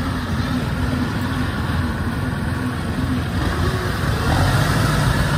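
Engine of a tracked rice-hauling carrier running steadily as it drives loaded with sacks of rice, a continuous low hum that grows a little louder about four seconds in.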